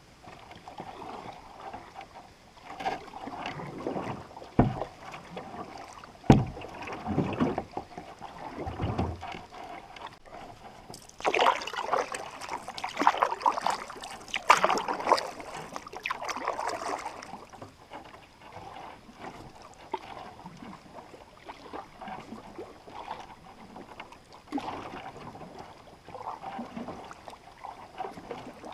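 Canoe paddle strokes in calm water: irregular splashing and dripping, with a louder stretch of splashing from about 11 to 17 seconds in. Two sharp knocks come about 4.5 and 6 seconds in.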